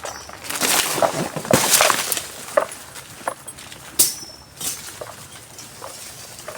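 Dry brush crunching and snapping: a dense crackling stretch in the first two seconds, then separate sharp cracks, the loudest about four seconds in.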